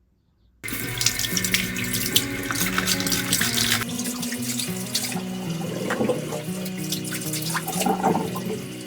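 Tap water running and splashing into a sink, starting suddenly under a second in, with background music playing.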